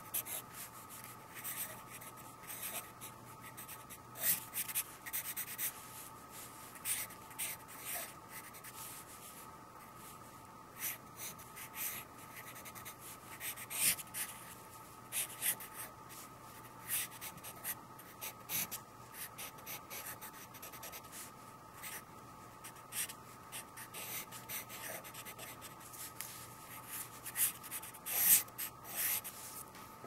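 Pencil scratching across sketchbook paper as a drawing is sketched: many short, irregular strokes in quick runs, the loudest just before the end.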